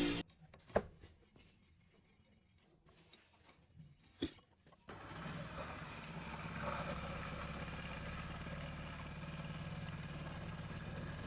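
Motorcycle engine running steadily from about five seconds in, after a quiet stretch broken by two sharp clicks.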